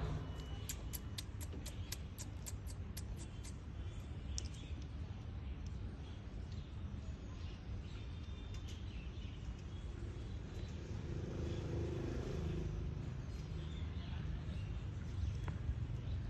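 Outdoor background noise: a steady low rumble, with a quick run of sharp high ticks or chirps in the first few seconds.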